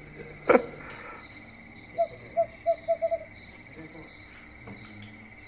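Night insects chirring steadily, with a quick series of about six short, same-pitched calls from a night animal about two seconds in, the notes coming closer together toward the end.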